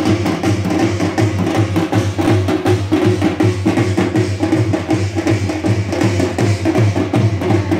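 Drums beaten hard in a fast, steady rhythm, sharp strikes over a low booming tone.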